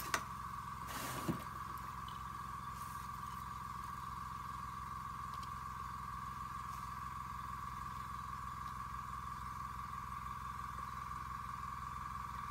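A small motor running with a steady hum and an even, high whine. A short rustle comes about a second in.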